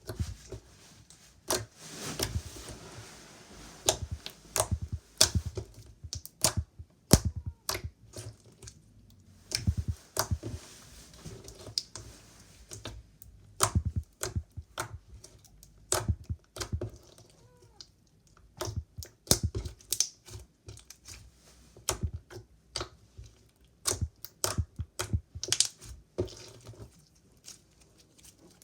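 Slime being squeezed and worked by hand, making irregular clusters of sharp clicks and pops as trapped air bursts.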